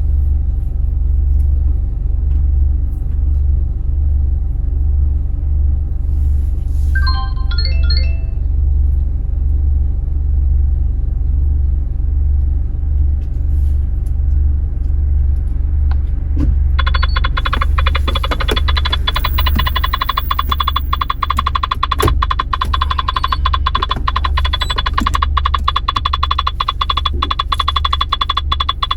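Honda Accord engine idling with a steady low hum. A short run of electronic beeps comes about seven seconds in. From about seventeen seconds on there is a sustained electronic tone with rapid clicking over it.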